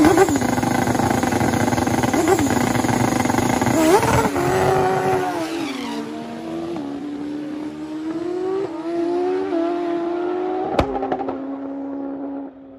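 A turbocharged Honda CBR1000RR drag bike's engine is held revving at the start line, its pitch wavering. About four seconds in it launches, and the pitch then climbs and drops in steps as it shifts up through the gears, fading as the bike pulls away down the strip. The team blames an intermittent clutch switch for letting the engine come off the two-step launch limiter, so the launch overpowers the rear tire. A single sharp click comes near the end.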